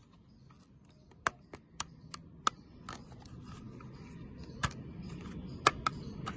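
Hands handling a plastic toy and its packaging: about nine irregular, sharp clicks and taps over a low rustle that slowly grows louder.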